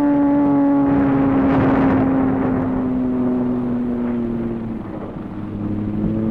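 Dive bomber's radial engine droning with a slowly falling pitch, with the rush of a bomb blast about a second in.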